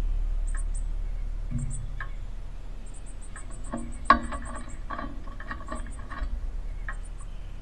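About four seconds in, a sharp knock, followed by a couple of seconds of clicks and flutter as an adult male northern cardinal takes off from a wooden platform feeder and lands on the metal perch. High, rapid chirping comes in short runs throughout, over a low rumble that fades.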